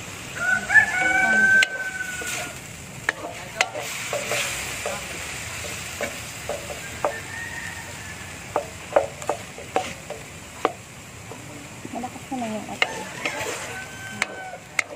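Diced pork sizzling in a large aluminium wok while a wooden spatula stirs it, with scattered scrapes and taps on the metal. A rooster crows about half a second in, the loudest sound, and calls again near the end.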